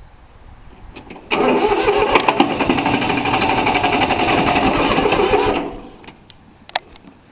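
Three-cylinder Yanmar diesel cranked by its starter motor for about four seconds, starting suddenly and then stopping without the engine catching. It won't fire because the fuel lines have not been bled.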